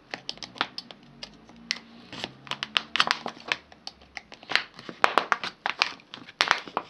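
Thin plastic soda bottle crackling and clicking as a small knife cuts around it just below the cap, in irregular sharp snaps and scrapes.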